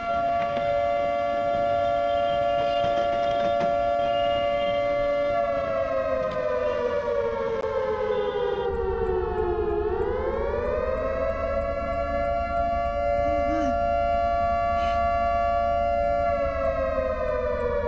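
Civil defense warning siren wailing: one held tone that slowly sinks in pitch, swells back up, holds, and begins sinking again near the end.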